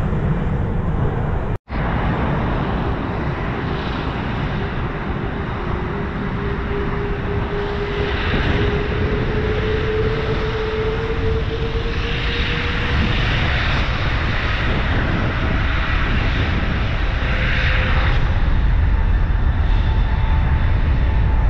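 Jet airliner engines running with a steady roar, a faint whine slowly shifting in pitch through it. The sound drops out for an instant about a second and a half in.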